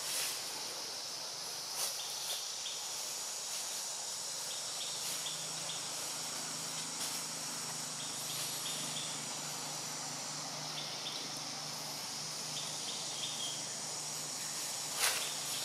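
Steady high-pitched insect chorus in the trees, with short chirps that repeat in small groups. A faint low hum comes in about five seconds in, and there is a brief rustle near the end.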